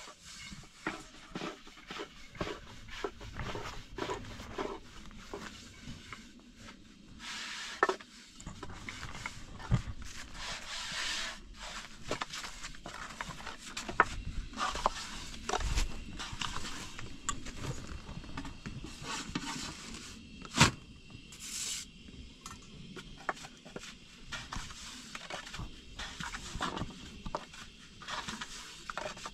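Long thin wooden rolling pin working flatbread dough on a round wooden board: irregular clicks and knocks of the pin against the board, with rubbing swishes in between.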